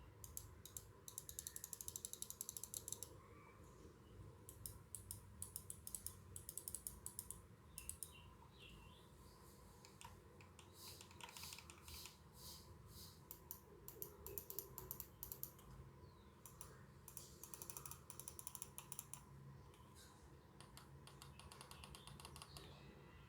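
Razer Basilisk gaming mouse buttons clicked in quick runs, each about a second long, with short pauses between them. The clicks are faint.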